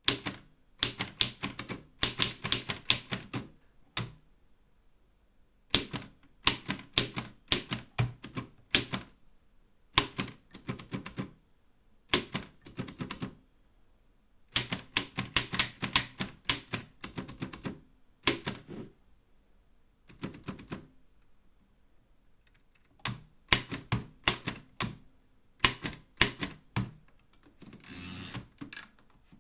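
Erika 5 manual portable typewriter being typed on: runs of rapid key strikes lasting a second or two, with short pauses between them. Near the end comes a softer, noisier sound about a second long.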